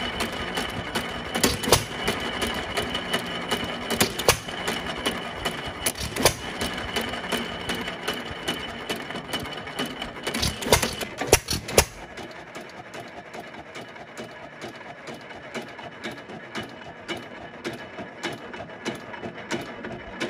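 1923 Fairbanks Morse 3 hp Z single-cylinder hit-and-miss engine running, with a fast steady clicking of its valve gear and governor and a loud sharp bang every few seconds at uneven gaps, a few close together about eleven seconds in. The running gets quieter about twelve seconds in.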